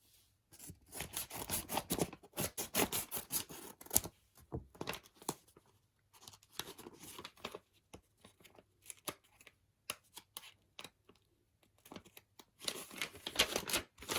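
Card packaging being handled and torn open by hand, with rustling and tearing in irregular bursts, heaviest in the first few seconds and again near the end.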